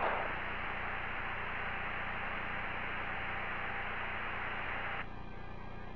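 Hiss of an open radio communication loop over a steady electrical hum; the hiss cuts off about five seconds in, leaving the hum.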